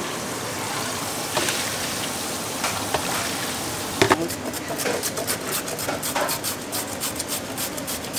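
Food sizzling on a wire grill over coal briquettes, a steady hiss. About four seconds in, a sharp knock, then a quick run of light taps, about three a second.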